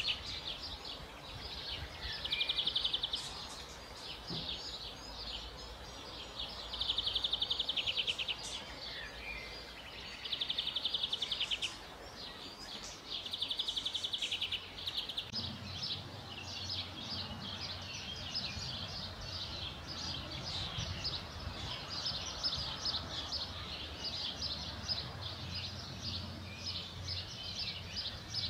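Small songbirds calling: short buzzy trills, each about a second long and repeated roughly every four seconds, then a steady stream of quick high chirps from about halfway on, over a low rumble.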